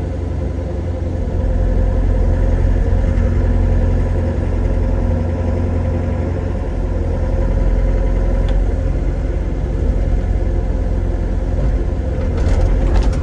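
Excavator's diesel engine running steadily while digging, working a little harder for a few seconds early on. A few sharp knocks near the end.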